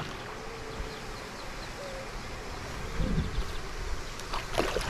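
A flying insect buzzing close by with a thin, wavering hum, then short splashes of water near the end as a redtail catfish is let go by hand into the pond.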